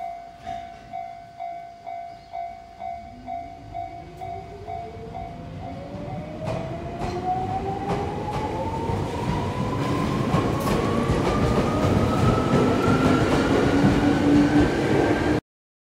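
Chichibu Railway 7500 series electric train, a former Tokyu 8090, pulling away and accelerating. Its motor whine climbs steadily in pitch and grows louder, with wheel clicks over the rail joints from about six seconds in. For the first five seconds a bell-like warning tone repeats about twice a second, then stops; the sound cuts off suddenly just before the end.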